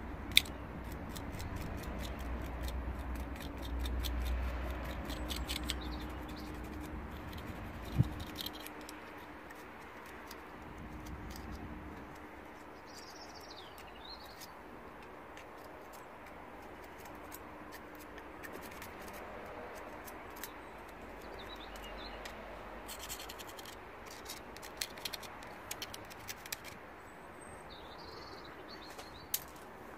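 Small wire brush scrubbing a Land Rover bonnet latch, in runs of quick scratching strokes, to clear caked old grease and dirt that have left the latch stiff. There is a sharp knock about eight seconds in, and faint bird chirps a couple of times.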